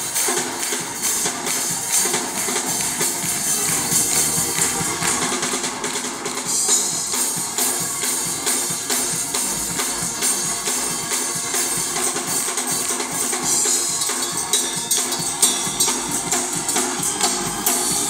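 Gospel choir singing an upbeat song with a live church band: drum kit and keyboards, with bright high percussion keeping a steady beat.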